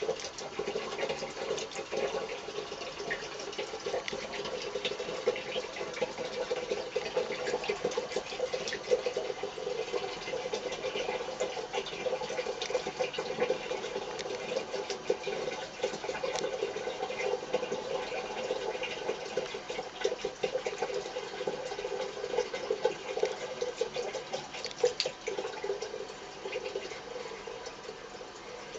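A thin stream of tap water pours steadily into a small ceramic basin. It splashes and spatters irregularly as a cat's paw breaks the stream.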